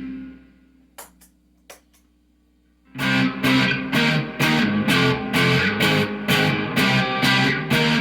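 Electric guitar through a distorted amplifier: a held chord dies away, two small clicks break a short near-silence, then about three seconds in a steady run of chugging power chords begins, struck roughly two to three times a second.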